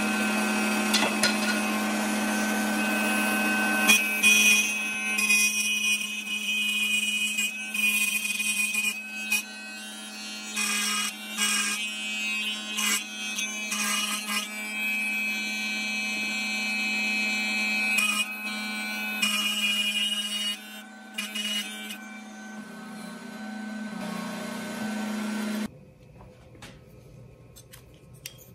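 Table saw running with a steady hum while thin wooden staves are pushed through the blade, the cutting noise coming and going in irregular rasps. The saw sound cuts off abruptly near the end, leaving only faint handling sounds.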